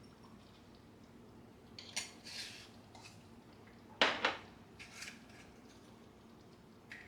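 A few separate sharp clinks and short scrapes of hard objects being handled, like kitchenware set down or knocked together, the loudest about four seconds in.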